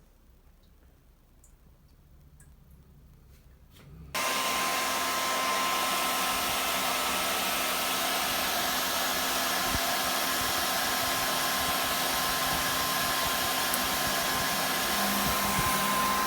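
Hair dryer switched on about four seconds in, running steadily with a faint whine, blown at the humidifier's humidity sensor to drop its reading; it stops at the very end.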